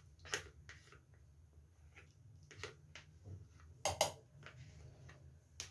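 Faint, sparse clicks and knocks of steel kitchenware being handled, the loudest a quick double knock about four seconds in, over a low steady hum.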